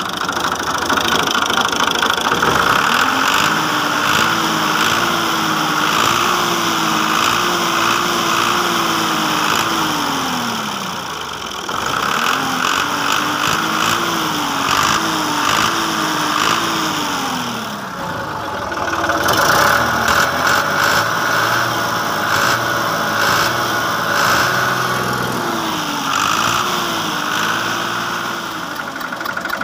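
New Holland Fiat 480 tractor's diesel engine running during a sound check, revved up and held for several seconds, then let back down to idle, three times.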